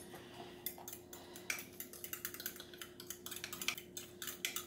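Kitchenware being handled: irregular light clicks and clinks over a steady faint hum.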